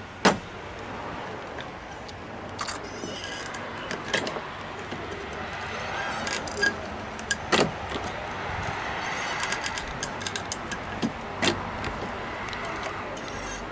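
Scattered sharp clicks and knocks, the loudest just after the start, with a quick run of clicks near the ten-second mark, over a steady low background noise.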